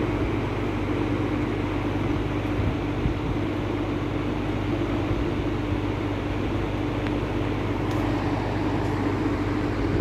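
Late-1950s Sears Homart 20-inch box fan running steadily on high speed: an even rush of air over a low motor hum and a steady mid-pitched tone. The motor runs quietly, with no buzz or grinding, its windings freshly varnished.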